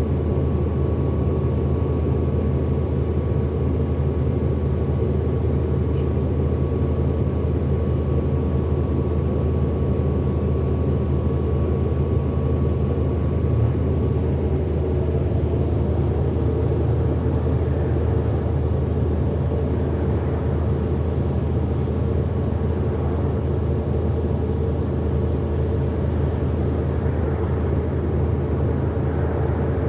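Orion NG diesel-electric hybrid bus running, heard from inside the cabin: a steady low drivetrain hum. A thin steady whine stops about halfway through, and faint rising and falling motor whines come later, the kind of whine the title calls a weird motor sound.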